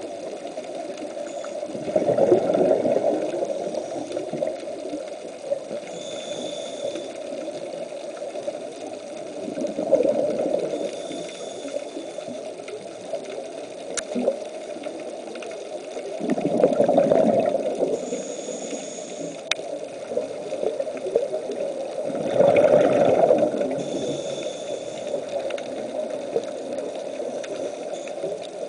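Underwater sound of a scuba diver breathing: a steady watery rumble that swells four times, about every seven seconds, as exhaled bubbles stream out, with a faint regulator hiss between the swells.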